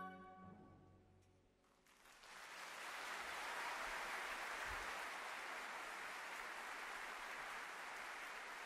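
A concert band's final brass chord rings and dies away, and about two seconds in an audience breaks into steady applause that carries on.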